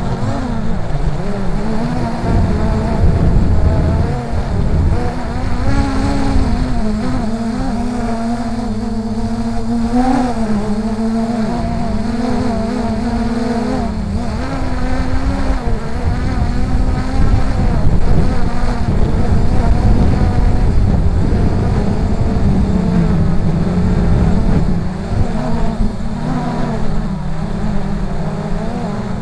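Force 1 F100 Ghost (MJX Bugs 3) brushless quadcopter's motors and propellers buzzing in flight. The pitch rises and falls as the throttle changes, over heavy low rumbling of strong wind buffeting the microphone.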